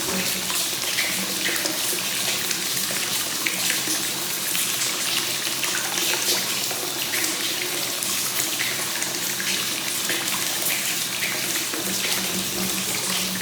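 Hot spring water flowing continuously into a bath (free-flowing 'kakenagashi' spring water): a steady, even rush of pouring and splashing water. A low hum-like tone in the pour drops away just after the start and comes back near the end.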